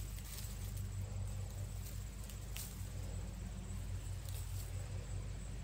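Faint rustling of pepper plants and a few soft, scattered snaps as peppers are picked by hand, over a steady low hum.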